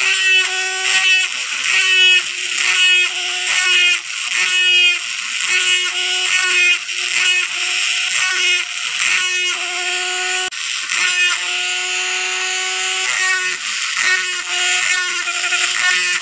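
Rotary tool with a small ball burr running at high speed and carving dimples into sonokeling (Indian rosewood) root: a steady high whine that dips each time the burr bites, with a grinding rasp swelling about once a second as each dimple is cut.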